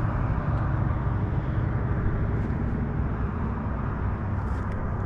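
Outboard motor of a bass boat running steadily with a low, even rumble.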